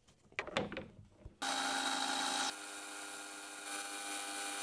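A few clicks and knocks of metal bar stock being set in a lathe's three-jaw chuck, then, about a second and a half in, the metal lathe running steadily as it turns the stock, with several steady pitches over the hiss of the cut.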